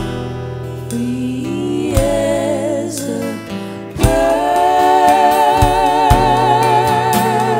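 Pop-folk band playing live, with singing. After a quieter start, the voices hold long notes with vibrato from about halfway through, over a steady bass line and a few drum hits.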